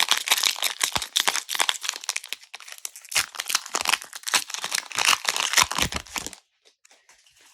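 Foil Pokémon booster pack wrapper crinkling and being torn open, a dense crackling rustle that stops about six seconds in.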